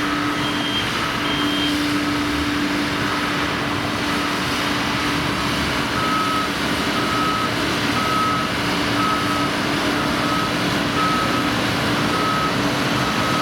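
Construction-vehicle backup alarm beeping about once a second over steady machinery and site noise. A second, higher-pitched backup alarm beeps twice near the start, and a steady low hum fades out near the end.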